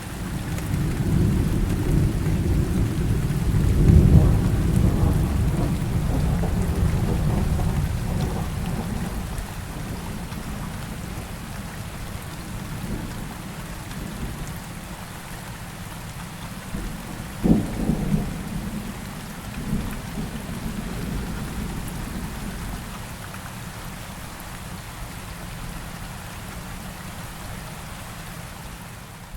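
Steady rain with a long roll of thunder that swells over the first few seconds and slowly dies away. About halfway through comes a sharp thunder crack, followed by a smaller rumble.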